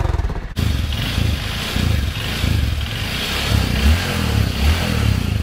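Honda CRF150L's single-cylinder four-stroke engine running through its stock exhaust, idling with a few light swells of throttle; the sound breaks off for an instant about half a second in.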